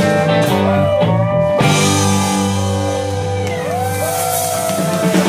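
Live country band playing the instrumental close of a song: electric guitar and pedal steel guitar over bass and drums, with long held notes that bend in pitch. Choppy hits come in right at the end.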